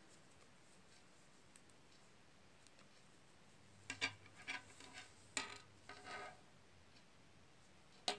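Knitting needles clicking and scraping against each other in a short run of quick clicks about four seconds in, then one sharp click near the end; otherwise near silence.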